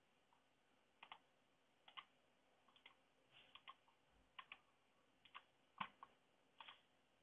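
Faint computer mouse clicks, about eight of them at roughly one a second, many heard as a quick press-and-release double click.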